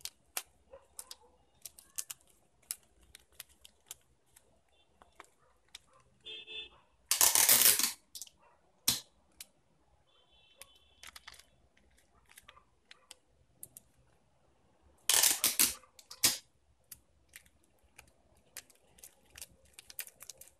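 Cellophane wrapping paper crinkling and crackling as it is folded and wrapped by hand, in many short sharp crackles, with two louder, longer bursts of crackling about seven seconds and fifteen seconds in.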